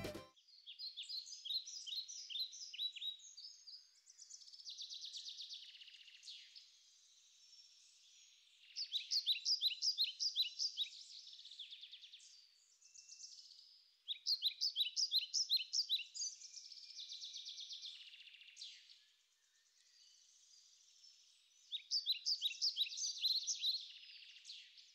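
Songbird singing: short phrases of rapid, high repeated notes alternating with buzzier trills, with pauses of a second or two between phrases.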